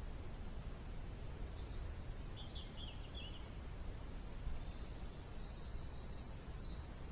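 A songbird singing two phrases of short, high chirping notes, the second phrase faster and higher, over a steady low background rumble.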